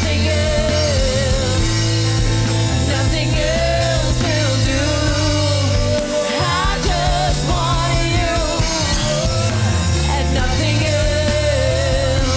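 Live worship song: a woman singing lead with vibrato, backed by singers and a band with keyboard, bass and drums.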